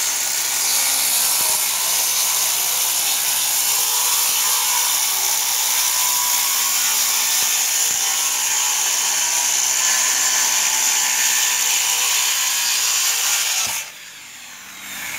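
Circular saw cutting a long straight line through OSB roof sheathing, running steadily and stopping about fourteen seconds in.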